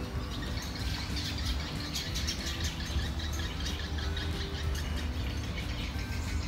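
Small birds chirping over a steady low hum.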